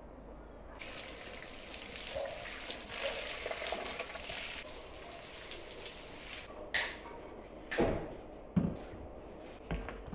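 Food sizzling as it fries, an even hiss that starts about a second in and cuts off suddenly after about six seconds. A few knocks follow near the end.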